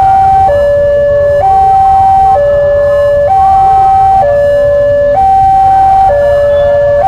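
Railroad level-crossing warning alarm sounding a loud two-tone hi-lo signal, each tone held about a second, over a low rumble. The alarm means the barriers are down and a train is approaching.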